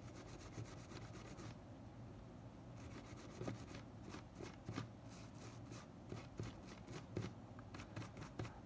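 Cotton swab scrubbing grime off a cassette Walkman's tape mechanism: faint, quick scratchy rubbing strokes, in a short spell at first and again from about three seconds in.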